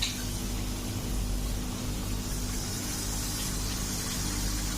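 Potato chips frying in hot oil: a steady sizzling hiss over a low, even hum.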